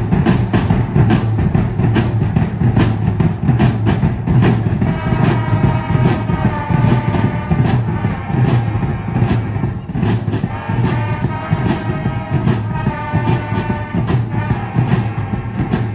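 High school marching band playing live: brass, with trumpets and sousaphones, over a steady drumline beat. Held horn chords stand out more clearly from about five seconds in.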